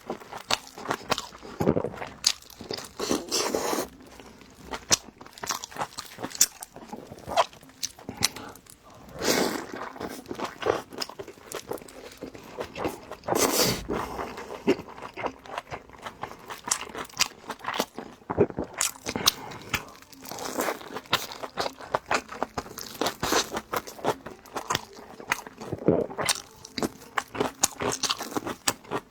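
Close-miked eating of large steamed dumplings: a person biting and chewing, with a steady run of irregular wet mouth clicks and smacks.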